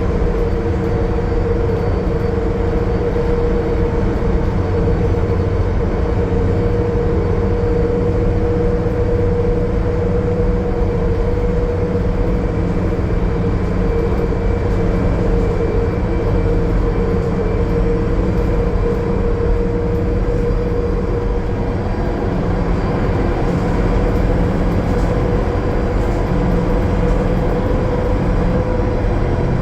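The Cummins ISL9 diesel drivetrain of a 2020 Gillig Low Floor 40-foot transit bus running steadily at highway cruise. A low rumble of engine and road noise carries a steady mid-pitched whine.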